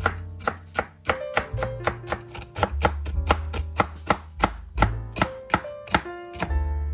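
Mikadzo chef's knife rapidly chopping walnuts on a wooden cutting board: quick, even knocks of the blade on the board, about four a second, stopping near the end.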